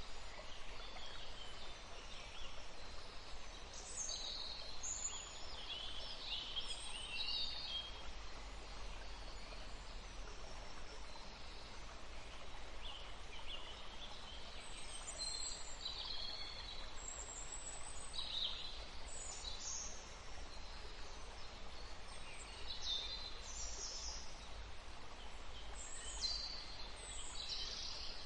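Several songbirds chirping and singing in short, high-pitched phrases over a steady background hiss. There is a lull in the calls from about 8 to 14 seconds in.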